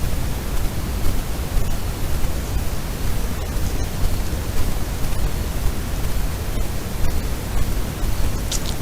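Steady loud hiss, heaviest in the low end, with a few faint clicks.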